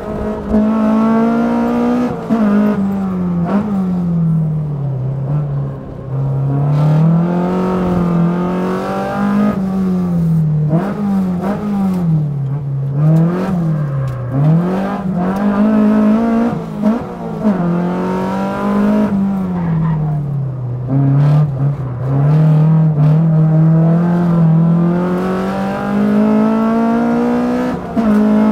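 A Toyota AE86's 2-litre 3S-GE four-cylinder engine at hard track driving, heard from inside the cabin. The revs climb repeatedly toward about 7,000 rpm and fall away for braking and corners, with several quick drops and rises in the middle stretch.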